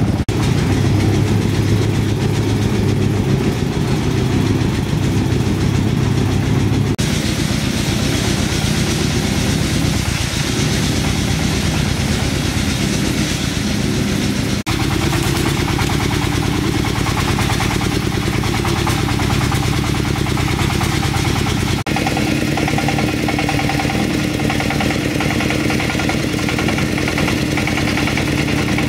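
An engine running steadily, with its tone changing abruptly three times, about seven, fifteen and twenty-two seconds in.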